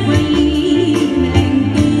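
Live band music amplified over a PA: a woman singing a Cambodian song into a microphone over bass and a steady drum beat.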